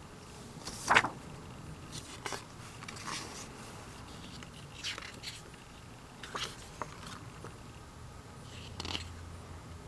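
Pages of a hardcover album booklet being turned and handled: a series of short paper rustles and flips, the loudest about a second in.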